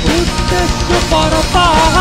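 Live rock band playing: a male singer over electric guitar, bass guitar and drum kit. Near the end he holds a note with a wavering vibrato.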